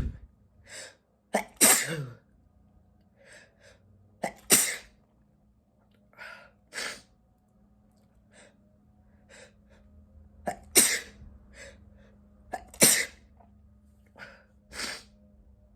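A man sneezing again and again: a string of sharp, noisy sneezes a couple of seconds apart, the strongest about five times, with fainter short breaths between.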